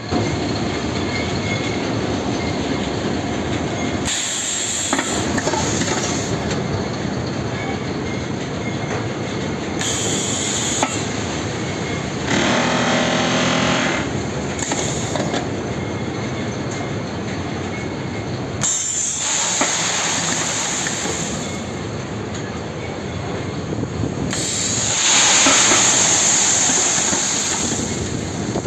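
Belt-type concrete batching plant discharging gravel from its aggregate bins onto the conveyor belt: a steady machinery noise and pouring stone, broken by several hissing bursts, the loudest near the end.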